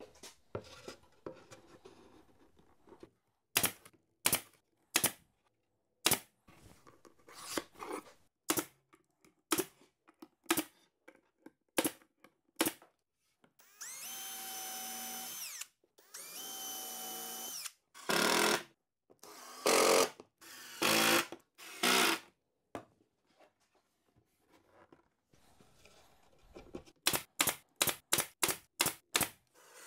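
Drill with a countersink bit boring pilot holes into a plywood top: two steady whining runs of under two seconds each, then four short loud bursts of screws being driven. Scattered sharp knocks come before, and a quick string of about nine brad nailer shots near the end.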